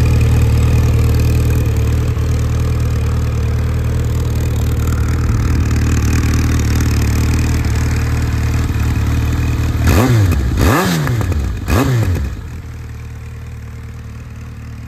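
Yamaha XJR1300's air-cooled inline-four engine idling steadily through an SC Project exhaust can. About ten seconds in it is given three quick throttle blips, each rising and falling in pitch, and then it settles back to a quieter idle.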